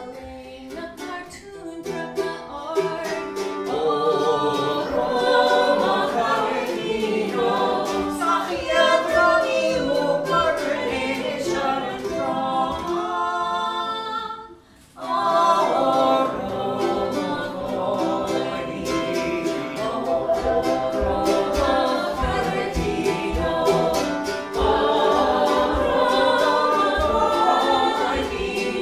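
A man and a woman singing together in Irish to a strummed mandolin. The music stops for a moment about halfway through, then picks up again.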